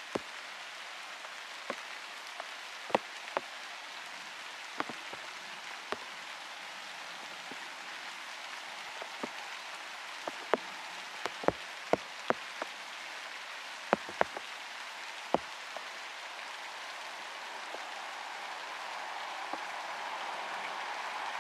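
Steady rain falling, with single drops landing close by as sharp, irregular taps. Over the last few seconds a low rushing noise slowly builds: a train approaching from a distance.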